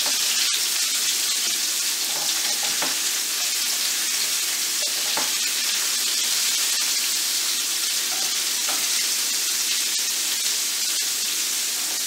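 Ground-beef hamburger patties sizzling steadily in a grill pan over a gas burner on high heat, with a few light clicks of the spatula against the pan as they are turned.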